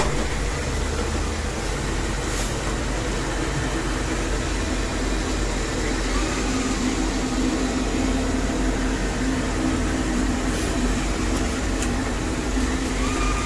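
A steady motor running: an even hum with a deep rumble underneath, starting abruptly and holding level throughout.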